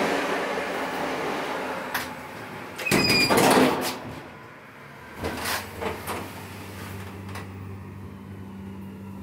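Lift car doors sliding shut, with a loud clatter about three seconds in. A couple of seconds later a steady low hum from the lift's drive sets in, with scattered clicks.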